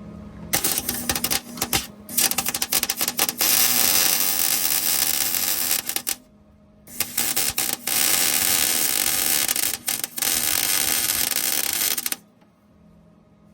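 Wire-feed (MIG) welder crackling as it lays two beads of about five seconds each, with a pause of about a second between them.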